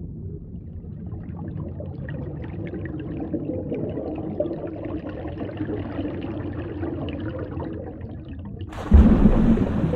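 Water bubbling and gurgling steadily, with a sudden louder rush of water starting near the end.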